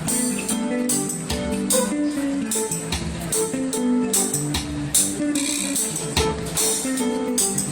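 Music led by guitar, with strummed chords over a steady beat.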